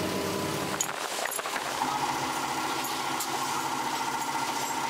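Small workshop machinery running steadily. About a second and a half in, the sound changes to a steadier high-pitched hum with a fast, fine rattle.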